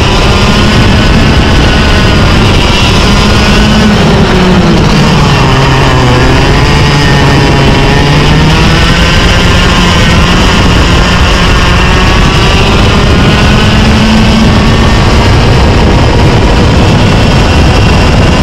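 Two-stroke Tag Cadet kart engine running hard at racing speed, very loud. Its pitch sinks about five seconds in as it comes off the throttle, then climbs back up and holds high again.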